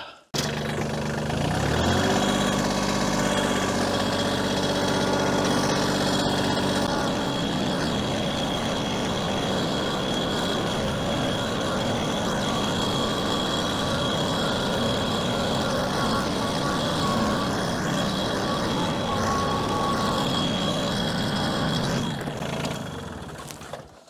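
An engine revs up about a second in and runs steadily, its hum giving way after a few seconds to an even, rushing noise with a faint high whine over it. It fades out near the end.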